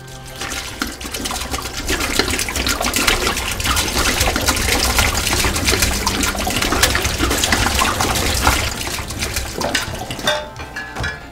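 Liquid from a bottle being emptied, splashing into a kitchen sink and down the drain for about ten seconds. A couple of sharp knocks near the end.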